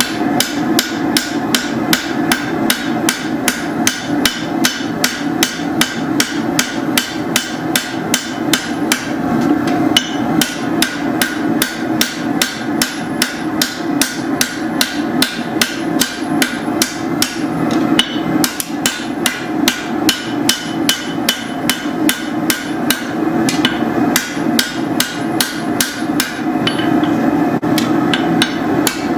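Rounding hammer striking hot steel in rapid, even blows, about three to four a second without a break, drawing out a machete blade. A steady hum sits beneath the blows.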